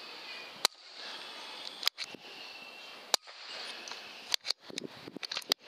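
Air rifle shots: three single sharp cracks about a second and a quarter apart, then a quick run of sharp clicks near the end, over a steady high hiss.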